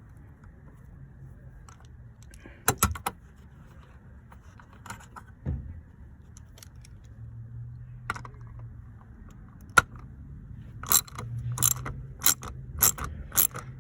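A few scattered metal tool clinks, then near the end a ratchet wrench clicking in quick repeated strokes as a T30 Torx bolt on the rear seat bracket is loosened.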